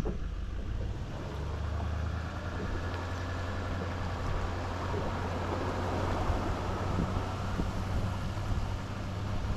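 Bass boat's outboard motor running steadily, with wind and water noise buffeting the microphone.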